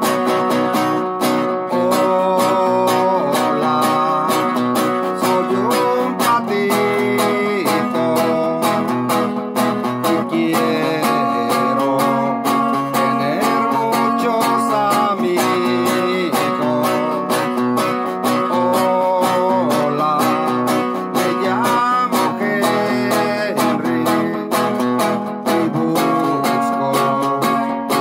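Nylon-string classical guitar strummed in a steady rhythm, with a man's voice singing along at times.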